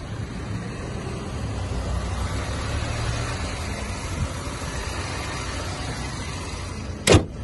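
2012 Mercedes-Benz E250's engine idling with a steady low hum. Near the end comes a single loud thump as the bonnet is slammed shut.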